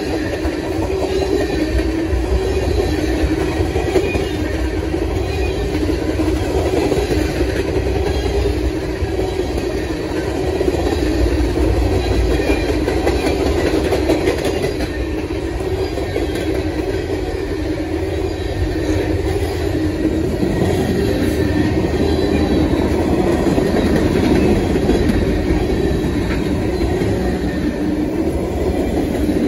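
Long freight train rolling past close by, its cars' wheels running steadily on the rails without letup.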